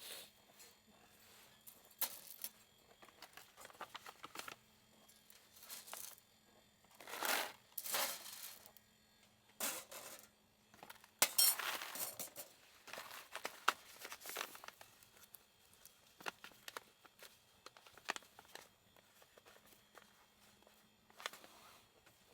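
Irregular rustling and crinkling with small clicks and knocks, the sound of things being handled, loudest in two bursts about a third and half way through, over a faint steady low hum.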